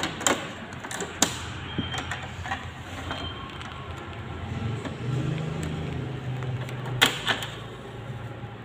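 Handling noise on a new Epson L3210 ink-tank printer: sharp plastic clicks and knocks as its lid and parts are moved and the blue packing tape is peeled off, with the loudest clicks about seven seconds in. A low hum swells in the background from about halfway through.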